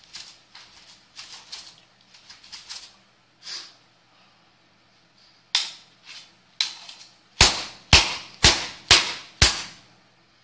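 A steel blade striking stainless-steel wire armguards: light metal rattling and clicking at first, then a run of sharp metal strikes, seven in all, the last five about two a second and the loudest.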